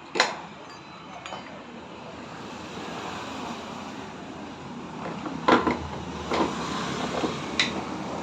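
A few sharp metallic clinks of tools and engine parts being handled, about a second in and then three more in the second half, over a steady background hiss.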